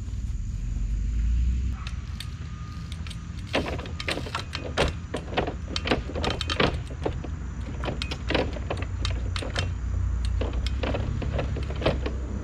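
24-inch Echo trials bike hopping and balancing on stacked wooden pallets. About three and a half seconds in, a run of sharp, irregular knocks and rattles begins as the tyres land on the wood and the chain and frame clatter. A low rumble sits underneath.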